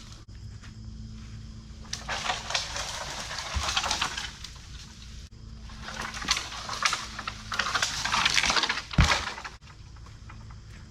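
A small dead maple coming down: branches crackling and brush rustling in two stretches, then a heavy thud about nine seconds in as the trunk hits the ground.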